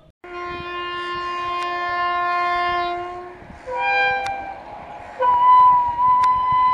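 Horn of an Indian Railways WAP-7 electric locomotive sounding three times: a long blast of about three seconds, a short one, then another that is still going at the end, each at a different pitch.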